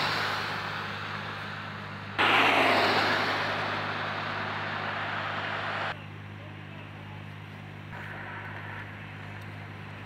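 Heavy construction machinery running with a steady low engine hum under a rushing noise, which gets louder about two seconds in and drops away abruptly about six seconds in.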